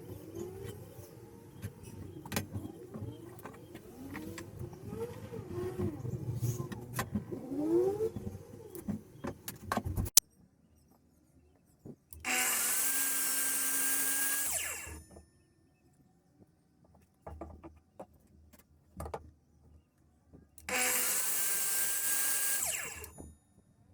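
A handheld power tool, such as a drill or router, is switched on twice, each time spinning up and running steadily for about two and a half seconds before stopping. Before it, a jumble of knocks and wavering tones ends in an abrupt cut.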